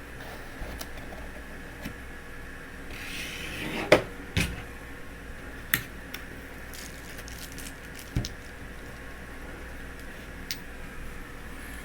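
Scattered clicks and knocks from a mailed package being opened by hand, with a short rustle of packaging about three seconds in.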